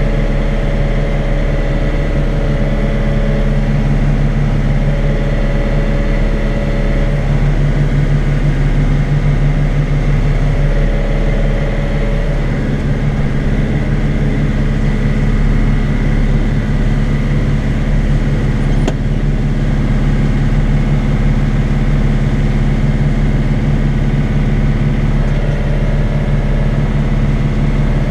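Tractor engine and PTO-driven Kuhn Primor straw chopper-bedder running steadily, heard from inside the tractor cab.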